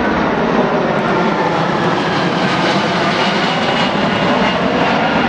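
Steady roar of an airliner's jet engines passing overhead, holding an even level throughout.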